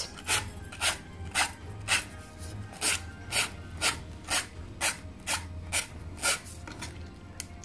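An old emery board filed in one direction along the edge of a decoupaged tin lid, about two short strokes a second, wearing away the overhanging paper napkin to leave a clean edge.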